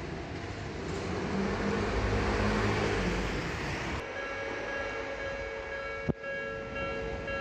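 Odakyu Line train running past the level crossing, its wheel and running noise swelling and then easing. About four seconds in, the sound changes abruptly to a quieter steady hum of several held tones.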